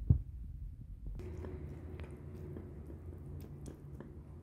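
Metal spoon scooping food from a ceramic bowl: a sharp clink against the bowl near the start, then soft wet scooping and a few light clicks. A low steady hum comes in after about a second.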